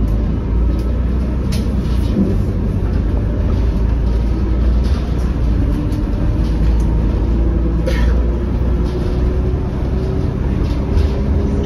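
Volvo B12BLE bus heard from inside the cabin while under way: a steady low engine and road rumble, with a faint tone that rises slowly through the second half as it gathers speed. A few short interior rattles come through, the sharpest about eight seconds in.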